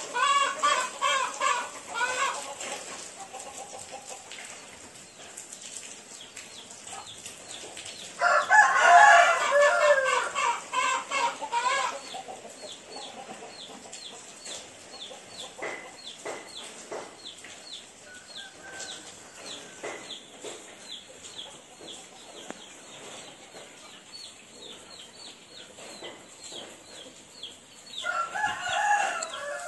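Chickens clucking and cackling in loud repeated bursts: one at the start, the loudest from about eight to twelve seconds in, and another near the end, with faint rapid ticking and a steady hiss between the bursts.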